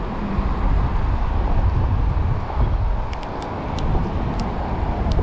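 Steady low outdoor rumble, with a few faint, sharp clicks between about three and four and a half seconds in as a hook is worked out of a small black sea bass's mouth.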